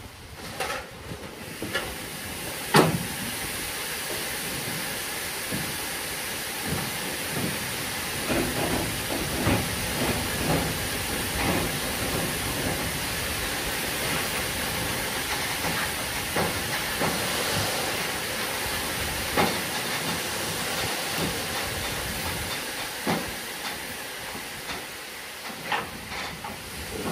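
Sand unloading from Faccs hopper wagons: a steady hissing rush with scattered knocks, one loud knock about three seconds in.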